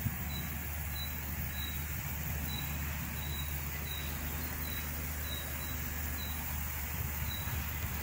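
Meadow ambience: a short high chirp repeating every half second or so over a low steady rumble of wind.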